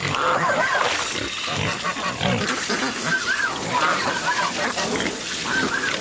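American Guinea Hogs calling around a person at their water tub: a string of short high-pitched calls, repeated roughly once a second, over low grunts.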